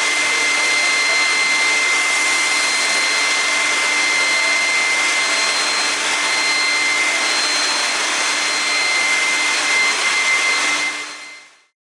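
Kraft Maschinenbau TCF 70 CNC woodworking machining centre running: a steady rushing noise with a constant high whine and a low hum, fading out near the end.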